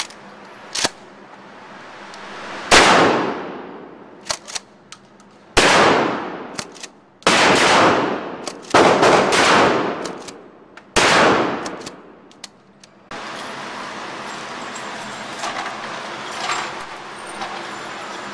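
Remington 870 Tactical pump shotgun firing about five loud shots, each with a long echoing tail in the enclosed range, with short clicks of the pump action between shots. A steady rustling noise takes over about two-thirds of the way through.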